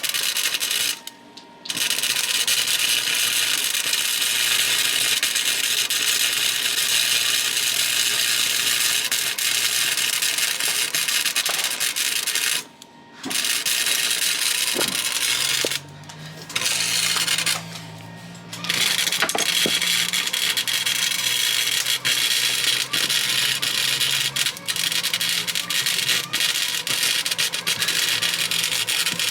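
Welding arc crackling and hissing in long runs, stopping abruptly four times for under a second as the torch is let off and restarted.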